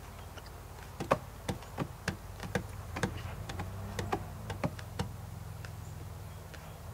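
A run of a dozen or so sharp, irregular clicks lasting about four seconds, starting about a second in, over a steady low hum.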